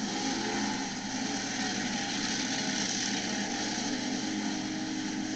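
Monster truck engine running hard at high revs, a loud, steady drone as the truck accelerates across the dirt.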